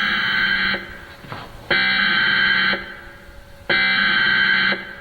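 Emergency Alert System SAME header: three harsh, buzzing digital data bursts, each about a second long and a second apart, the coded signal that opens a broadcast emergency alert.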